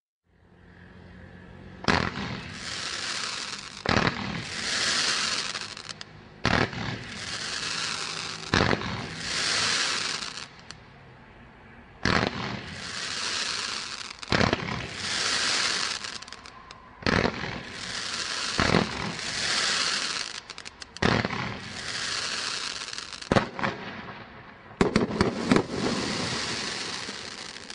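Brothers Pyro 'Fantastic' 140-shot display roman candle battery firing: a sharp bang about every two seconds, each followed by a burst of crackling, with a quick cluster of bangs near the end.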